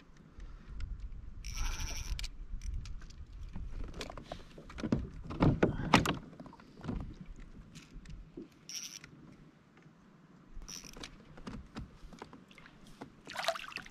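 Irregular knocks, clicks and short rustling bursts from handling fishing gear and a just-caught fish aboard a kayak. The loudest thumps come about five to six seconds in.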